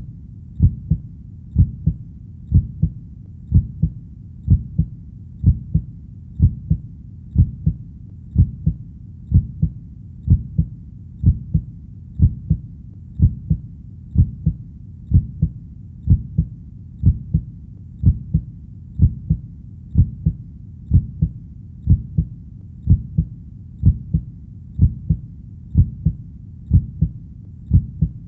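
Heartbeat sound: a steady, even rhythm of paired lub-dub beats, a little under one pair a second, deep and low over a faint steady rumble.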